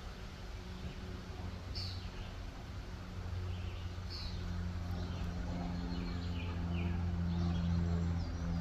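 A lawn mower's small engine running steadily, slowly getting louder. Birds chirp briefly about two and four seconds in, then a quick run of chirps midway.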